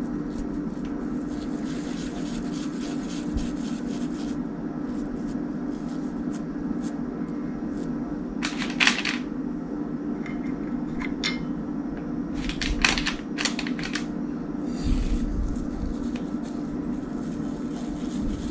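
A steady low mechanical hum runs throughout. Over it come a few short soft crackles and taps from hands handling sticky cookie dough on a parchment-lined baking tray: one about halfway through and a small cluster a few seconds later.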